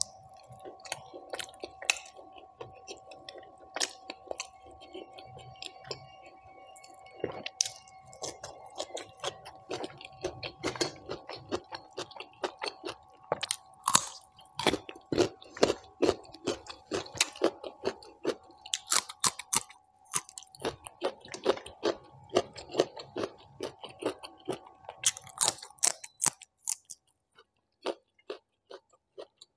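A person chewing and biting food with the mouth, in irregular wet clicks and crisp crunches, including crunchy bites of raw vegetable. A faint steady hum sits underneath and stops near the end.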